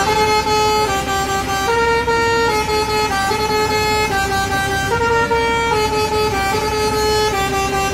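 Bus telolet horn of the Basuri type playing a looping tune: a continuous string of held notes stepping up and down, each under a second long.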